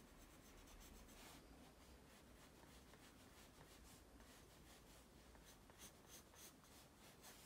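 Faint pencil strokes scratching across drawing paper in short repeated lines, with a quick run of strokes about six seconds in.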